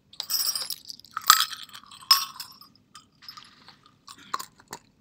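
Small metal jingle bells clinking and rattling inside a small white plastic container, in four short bursts, with a few sharp clicks near the end.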